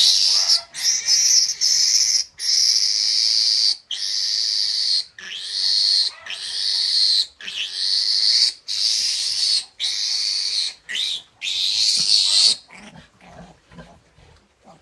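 Young piglet squealing in a string of long, high-pitched screams, each about a second, while held and given an iron injection. The squeals stop a couple of seconds before the end.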